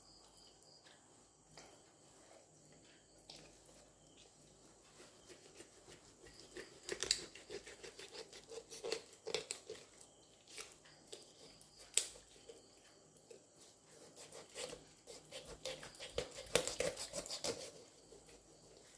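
Raw whole chicken being cut with a kitchen knife and pulled apart by hand on a wooden chopping board: soft, wet, sticky sounds of flesh and skin with sharp clicks now and then. The cutting comes in two busy spells, from about seven to ten seconds in and again near the end.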